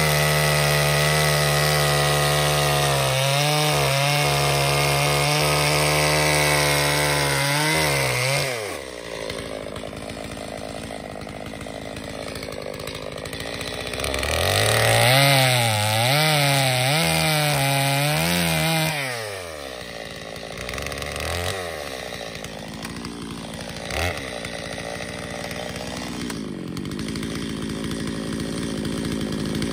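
Chainsaw running at high revs while ripping along the grain of a sycamore round to make noodle cuts. It drops off about eight seconds in, then revs up again for about five seconds with the pitch rising and falling about once a second, before dropping back to a low running speed. A single sharp knock comes near the end.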